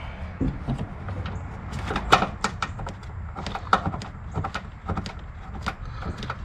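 Irregular plastic clicks and knocks as a vehicle's plastic washer fluid reservoir is handled and worked into place in the engine bay, over a low steady rumble.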